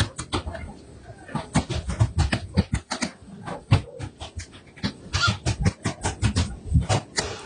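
A dog barking rapidly and repeatedly, several short barks a second.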